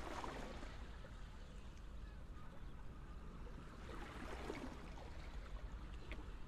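Faint, steady background hiss with a low hum.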